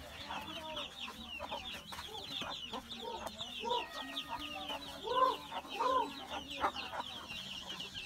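A brood of chicks peeping without a break in rapid, high, down-slurred notes. Over this come a few lower, arched clucks from a hen, the loudest about halfway through.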